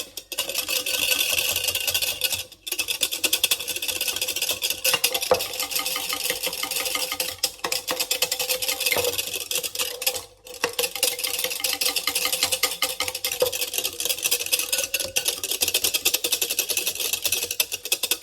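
Milo powder being mixed into the milk mixture in a bowl: a fast, steady clicking rattle of the mixing utensil against the bowl, pausing briefly twice.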